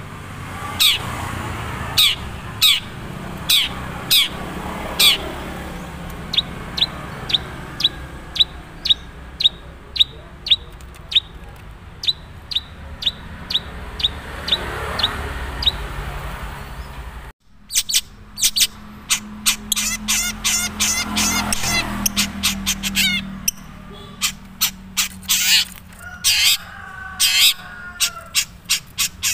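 Long-tailed shrike (cendet madura) calling in its natural voice, with little learned mimicry yet. It gives repeated short, sharp notes that slide downward, at first about two a second and then in quicker runs after a sudden break about halfway through.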